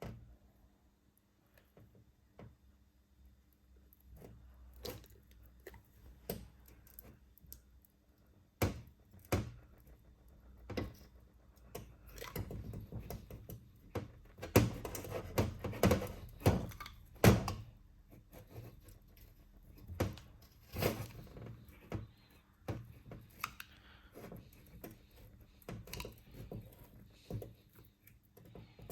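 Metal brake caliper parts being handled and fitted by hand: scattered clicks and knocks, coming thick and fast for a few seconds around the middle.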